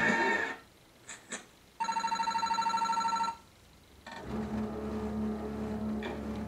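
Bally Wulff That's Cool slot machine sounds: a short electronic sound cuts off about half a second in, two light clicks follow, then a fast-trilling electronic beep tone for about a second and a half. The reels then spin up again with a steady hum.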